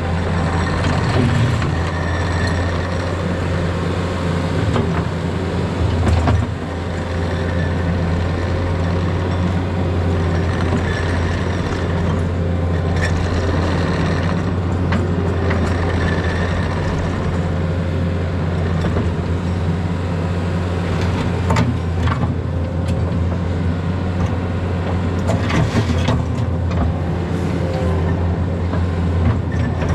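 Diesel engine of a Takeuchi compact construction machine running steadily under work, with scattered clanks and knocks of metal.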